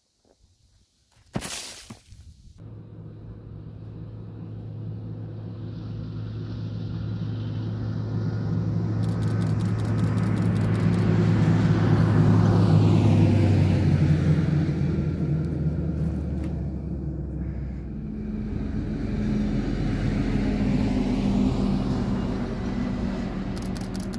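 Stadler GTW diesel railcar passing: its engine drone and running noise build up to a peak about halfway through, then drop in pitch and slowly fade as it pulls away. A short loud burst of noise comes just after the start.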